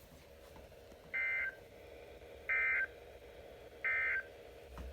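Three short bursts of Emergency Alert System SAME data tones, the rapid two-pitch digital buzz used in EAS broadcasts, each under half a second with about a second between them. Their short length fits the End of Message code that closes an alert. A faint steady hum runs underneath.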